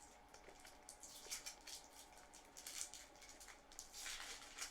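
Faint, sticky chewing of a Laffy Taffy taffy bar, with soft wet mouth clicks scattered through it.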